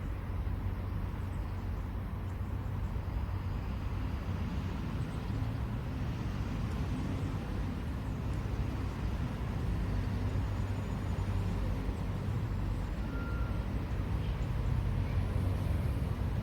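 Steady low rumble of distant road traffic, growing slightly louder near the end.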